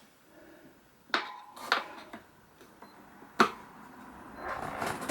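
Metal tyre levers clinking against a motorcycle wheel rim while a tyre is levered on: three sharp metallic knocks with a short ring, then rubbing and scraping near the end.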